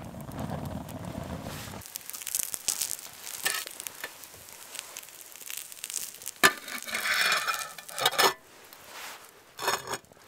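Wood fire burning in a folding twig stove, crackling, with a sizzle from biscuits cooking in a lidded pan set over the flames. Several sharp metal clinks of the pan and lid being handled, the last near the end.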